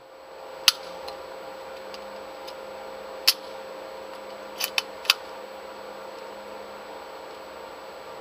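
Five short, sharp mechanical clicks, the second two close together near the middle, over a steady electrical hum with a held tone.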